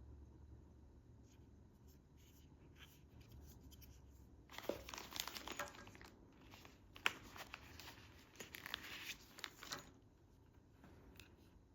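Packaging being handled during an unboxing: a run of crinkling and tearing rustles with a few sharp clicks, lasting about five seconds from a little before the middle, faint before and after.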